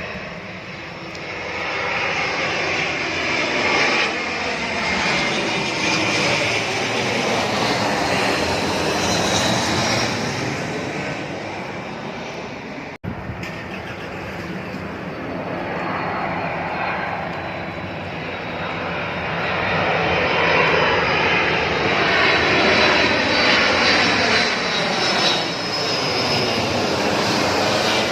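Airplane engine roar as aircraft pass overhead, swelling and easing, with an abrupt cut about halfway through where a second pass begins and grows louder toward the end.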